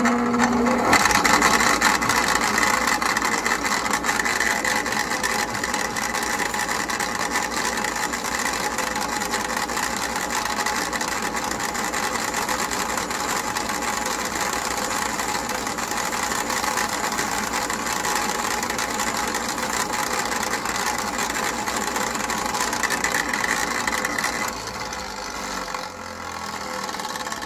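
Old Ram bench grinder starting up and running, a loud steady whine of several pitches, a noise it has made for about 20 years, as a steel rivet on a chainsaw chain link is ground off against the wheel. The level drops a little about three seconds before the end.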